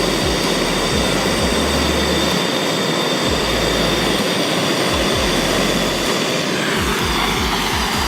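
Electronic music with a thumping kick drum and deep bass notes, under a loud steady rushing noise.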